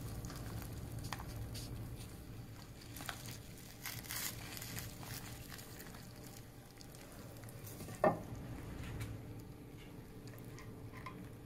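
Faint wet scooping and stirring of thick gravy and stuffing as a serving spoon digs into a plastic-lined slow cooker, with scattered light clicks and one sharper click about eight seconds in.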